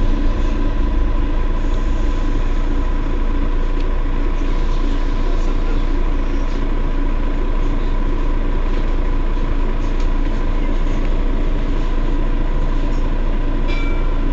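Mercedes-Benz Citaro city bus standing at a stop with its engine idling: a steady low hum with a constant whine over it.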